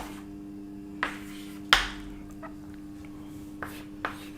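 A few short, sharp taps and clicks, about five, the loudest near the middle, over a steady low electrical hum.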